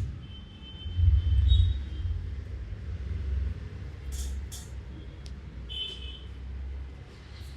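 Low rumble of passing road traffic, swelling about a second in and then running on more quietly, with a few short sharp taps near the middle.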